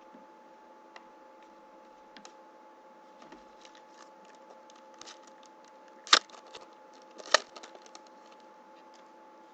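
Hands handling trading cards and opening a foil card pack: light rustling and small clicks, with two sharp loud crackles of the foil wrapper about six and seven seconds in.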